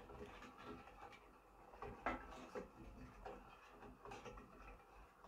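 Faint, scattered knocks and scrapes of a plastic ladle stirring water in a stainless steel pot, the sharpest knock about two seconds in, while sugar dissolves.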